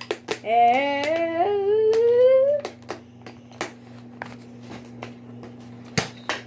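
A child's voice making a hummed sound effect whose pitch climbs steadily for about two seconds, followed by scattered clicks and taps and one sharp knock near the end, over a steady low hum.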